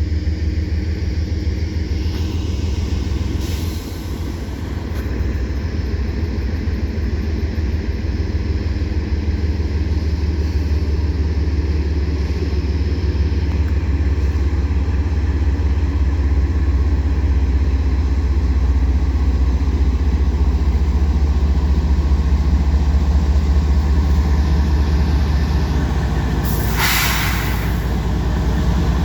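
Union Pacific freight train rolling past at speed: a steady, loud low rumble of the cars running over the rails, with a brief hiss a couple of seconds before the end.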